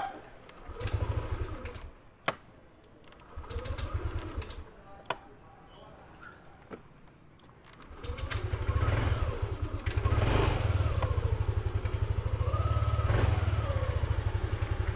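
Yamaha Aerox 155 scooter's single-cylinder engine being started with the electric starter: two short cranking attempts that die out, with sharp clicks between them, then about eight seconds in a third attempt catches and the engine runs steadily. It is hard starting and does not fire on the first press.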